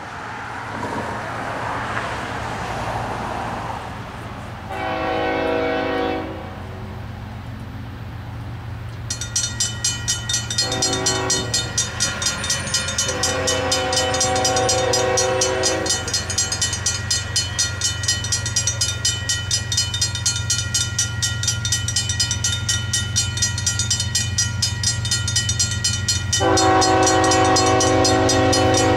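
An approaching Union Pacific freight locomotive sounds its horn in four blasts for the grade crossing. About nine seconds in, the crossing's RACO mechanical bell starts ringing rapidly and keeps ringing. A steady low hum lies underneath.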